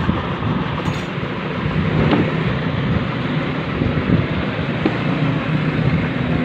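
Steady low mechanical drone with a constant hum, unbroken throughout, with a faint click about a second in.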